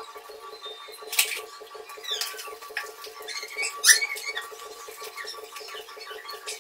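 A cloth rubbed over a porcelain sink, giving short squeaks and scrapes, the loudest about four seconds in. A steady hum runs underneath.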